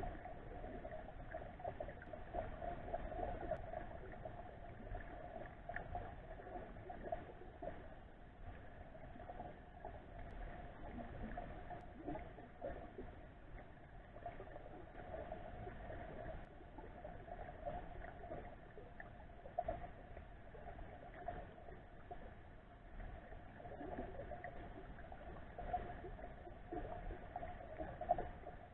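Muffled underwater ambience of flowing river water, heard through a submerged camera, with a steady hum throughout and a few faint knocks.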